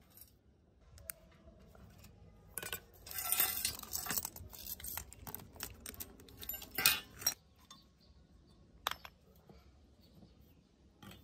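Rusty bicycle chain and loose metal bike parts rattling and clinking as they are handled and put down. There is a burst of jangling in the middle and a single sharp clink near the end.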